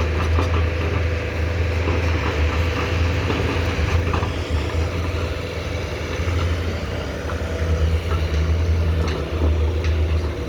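Diesel engine of a Komatsu PC210-10M0 hydraulic excavator running steadily, with a few short knocks near the end.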